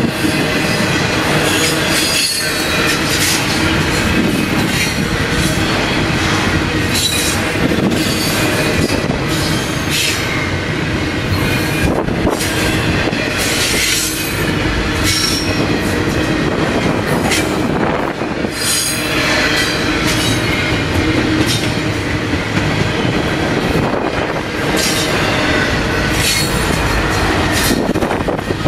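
Double-stack intermodal well cars of a long freight train rolling past: a loud, steady rumble and rattle of steel wheels on rail, with repeated clacks and brief high-pitched wheel squeals.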